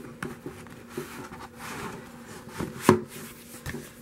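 A cardboard photobook album being handled on a wooden table: card and paper sliding and rustling, with light taps and knocks, the sharpest about three seconds in.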